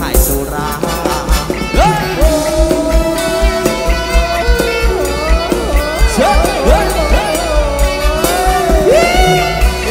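Thai ramwong dance music from an amplified live band: a singer comes in about two seconds in and holds a long note, then sings a winding, ornamented line. A steady heavy bass beat runs underneath.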